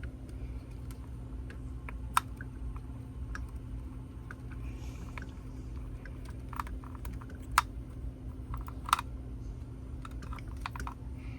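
Scattered clicks and taps of small tools and hard plastic and metal parts being handled while an RC crawler chassis is worked on, a few sharper knocks standing out, over a steady low hum.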